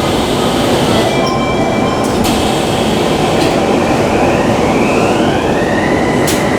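Tokyu Meguro Line electric train running, with a steady rumble of wheels on rail. About two-thirds of the way through, the traction motor whine rises in pitch and then holds level as the train gathers speed.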